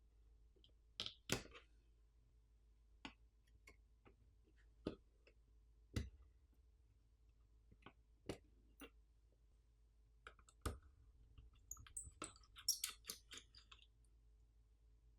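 Scattered light clicks and taps of tools and small parts on a mini PC being taken apart, about a dozen separate ticks spread out, with a brief run of quick small rattling clicks about twelve seconds in.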